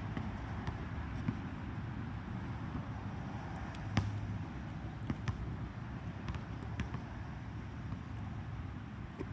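Basketball play on an outdoor court: scattered knocks of a ball bouncing, and a sharper clank about four seconds in as a shot hits the rim, over a steady low background rumble.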